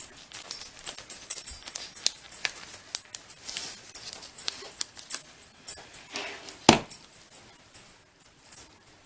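Light metallic jingling and small clicks, repeated irregularly, with one louder knock about two-thirds of the way through.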